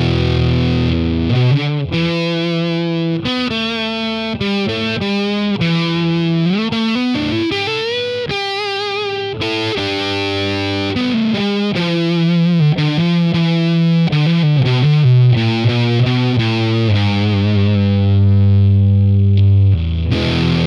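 Electric guitar played through a distortion pedal, heavily distorted riffing. Rising string bends and a wavering vibrato come near the middle, falling slides follow, and it ends on a long held low note.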